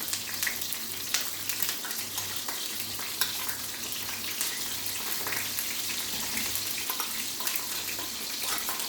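Sliced bell peppers frying in hot oil in a pan: a steady sizzle with small crackles throughout.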